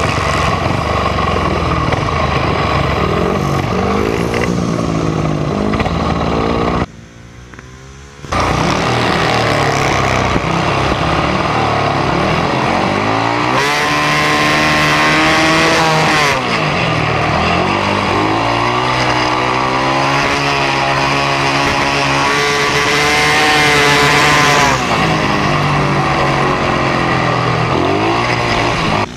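Speedway bike's single-cylinder methanol engine heard from on board during hard laps, its pitch repeatedly rising as it revs up and falling again. About seven seconds in, the engine note drops sharply for about a second and a half, then comes back at full volume.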